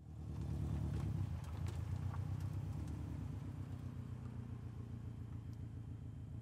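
Modified 2003 Subaru WRX STI's turbocharged flat-four boxer engine, with unequal-length headers and a 3-inch stainless turbo-back exhaust, idling steadily with a low rumble, fading in at the start.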